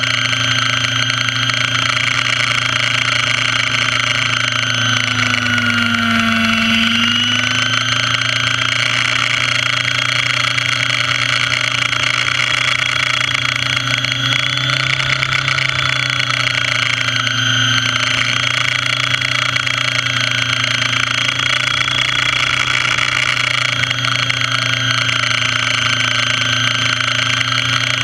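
Radio-controlled model helicopter in flight, heard from a camera mounted on its airframe: the motor and rotor run steadily, dipping briefly in pitch and coming back up about six seconds in.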